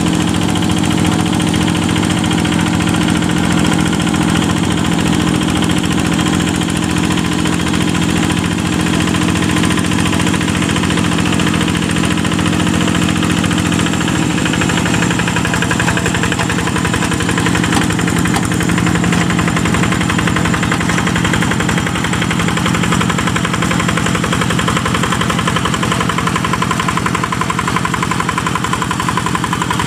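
Yanmar single-cylinder diesel engine of a two-wheel hand tractor running steadily under load as it works wet, soft paddy soil. Its pitch shifts slightly about halfway through.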